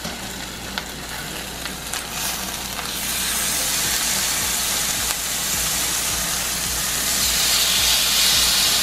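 Chicken breasts sizzling in hot oil in a cast-iron skillet as they are turned over with tongs onto their raw sides; the sizzle grows louder about three seconds in and again near the end. A few light clicks sound in the first two seconds.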